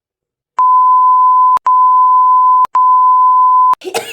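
Three long, steady, single-pitch electronic beeps, back to back, each about a second long, starting about half a second in: a censor-style bleep tone added in editing. A short noisy sound comes right at the end.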